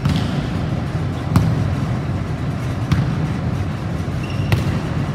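A volleyball is struck by players' hands during a rally: four sharp smacks about a second and a half apart, over a steady low hum of the hall.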